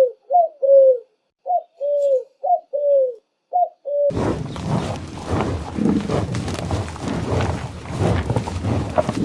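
Pigeon cooing: a run of short, clean, arching coo notes with silent gaps between them. About four seconds in it gives way to a busier outdoor recording full of mixed noise.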